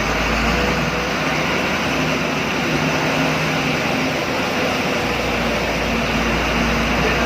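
A bus engine running with a steady hum and the even rush of a vehicle under way.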